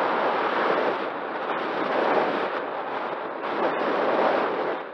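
Air rushing over the microphone of a camera mounted on an Opterra flying wing in flight. It is a loud, rough noise that swells and eases in waves about every two seconds.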